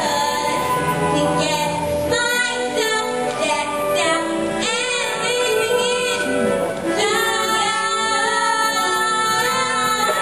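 A young female voice singing a musical-theatre song, with wavering held notes, over backing music.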